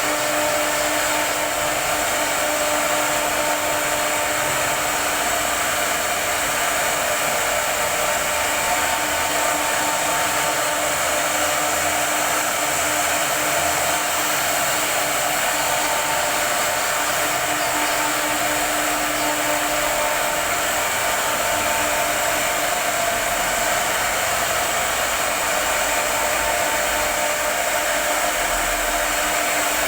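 High-speed CNC router running: a steady whir from its spindle motor with a constant high hum over a hiss.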